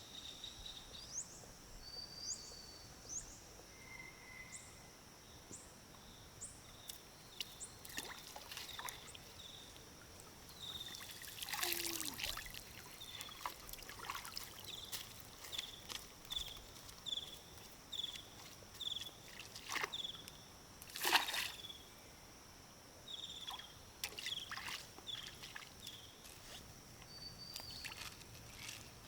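Water sloshing and dripping in irregular splashes, loudest about twelve and twenty-one seconds in. Behind it runs a steady high-pitched drone, with a short high chirp repeating a bit more than once a second.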